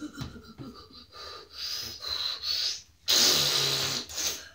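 A person making breathy, snorting mouth noises, then a louder hissing breath about three seconds in that lasts about a second.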